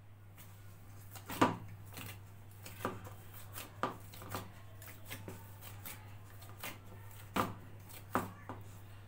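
Wheat-flour dough being kneaded by hand in a stainless steel bowl: irregular soft knocks and slaps as the fist presses the dough against the bowl, about a dozen over several seconds, the loudest about a second and a half in and again near the end.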